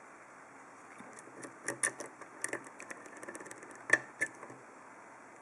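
Light metallic clicks and scrapes of a bent flag pick being put into and worked in the keyway of an Abus D10 euro-profile dimple lock cylinder. The clicks come irregularly, with the sharpest one about four seconds in.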